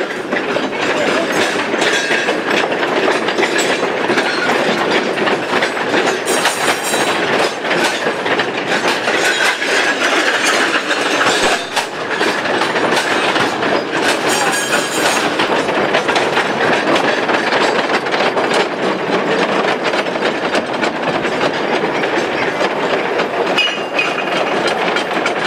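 Loaded narrow-gauge coal mine cars rolling past in a long string, their wheels clattering and clanking steadily over the track. Twice, about a third and halfway through, a brief high screech joins in.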